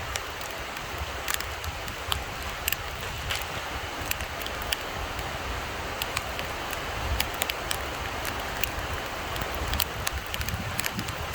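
Steady rain falling, with scattered sharp taps of single drops landing close by over an uneven low rumble.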